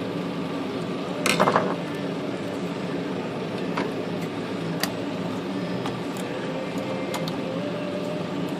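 Small metal clicks and a brief rattle of typewriter parts being handled on a Hermes 3000, with a few single ticks later, over a steady room hum.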